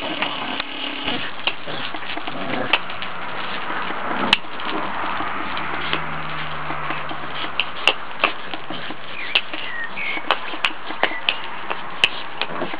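A dog's paws scuffing and clicking on loose gravel as it runs and spins, irregular sharp ticks over a steady background hiss. A bird chirps briefly a little past the middle.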